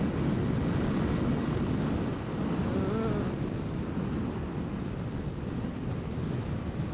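A 300 cc sport motorcycle's engine held near full throttle at road speed, with wind rushing past, heard from on the bike.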